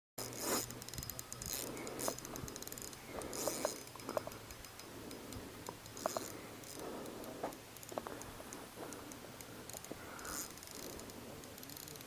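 Faint handling noise of a spinning rod and reel: scattered light clicks and soft rustles.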